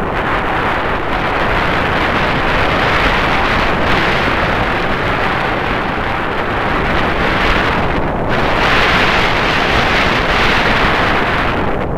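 Wind rushing and buffeting against the microphone, a loud steady roar with low rumbling; the hiss thins briefly about eight seconds in and again near the end.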